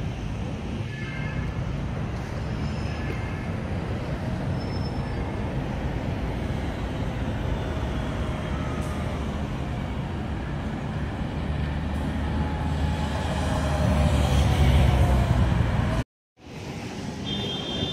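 Steady road traffic: cars and heavier vehicles passing on a city boulevard, with one passing engine swelling louder near the end. The sound cuts out for a moment just before the end, then the traffic resumes.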